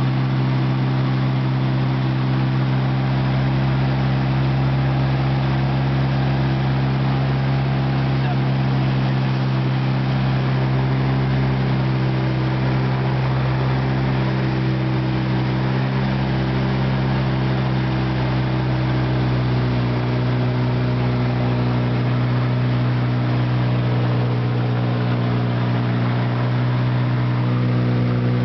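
Seabird Seeker light aircraft in level flight, heard inside the cabin: the steady drone of its piston engine and pusher propeller, one deep, even note with overtones over a constant hiss.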